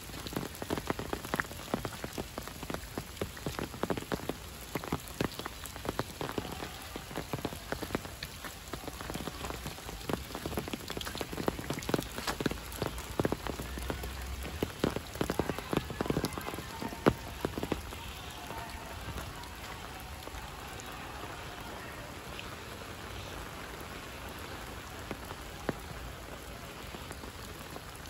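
Steady rain falling on paths, leaves and ground, with many sharp close drop hits for roughly the first two-thirds, then settling into an even hiss.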